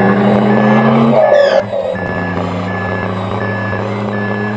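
Reversing beeper from an RC model truck's sound module, one short beep roughly every three-quarters of a second, over a steady simulated engine hum. About a second in there is a brief falling squeal, after which the engine hum gets quieter.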